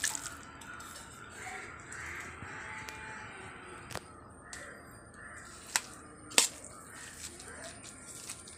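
Utensils clicking sharply against a steel plate three times, the two loudest about two-thirds of a second apart past the middle, as mashed potato is tipped onto the plate and stirred in with a spoon. Faint background noise fills the rest.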